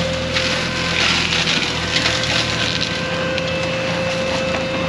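Cattle feed poured from a bag into a galvanised steel trough, a steady rattling hiss that swells as the bag is tipped. Under it is the steady hum of a tractor-mounted hedge cutter working.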